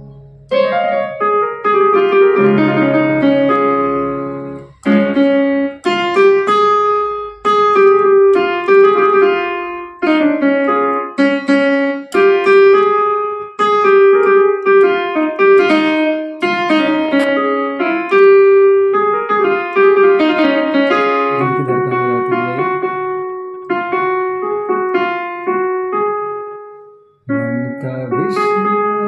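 Casio CT-X870IN keyboard played on its stage piano tone: a melody of piano notes, with low chords under it in places. The notes die away about two seconds before the end, and then the playing starts again.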